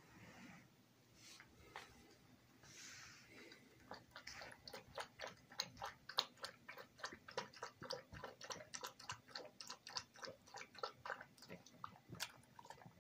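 Small puppy chewing and biting a plush toy: a faint, quick, irregular run of short clicks, about three or four a second, starting about four seconds in.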